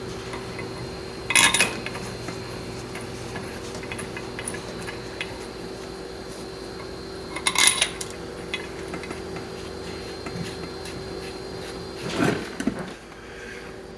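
Metal tools and parts clinking as they are handled: two sharp clinks several seconds apart and a duller knock near the end, over a steady shop hum.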